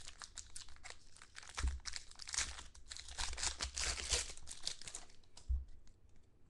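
Foil wrapper of a Select football card pack being torn open and crinkled in the hands: dense crackling that dies down about five seconds in, with a couple of dull bumps.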